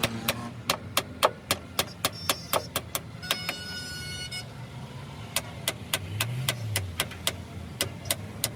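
Sharp, evenly spaced taps, about four a second, over a steady low engine hum, with a brief ringing tone about three seconds in.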